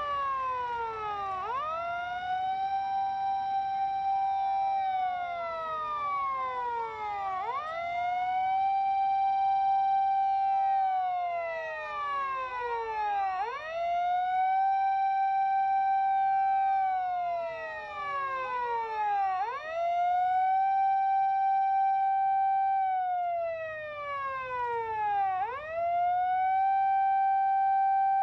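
Sirens of Japanese fire-service emergency vehicles on an emergency run, several wailing together slightly out of step. Each rises quickly, holds its high note for about three seconds, then slides slowly down, repeating about every six seconds.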